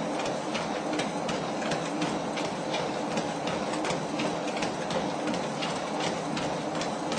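Motorized treadmill running with a steady hum, a man's footfalls on the moving belt giving a regular patter of clicks, two or three a second, along with typing on a laptop keyboard.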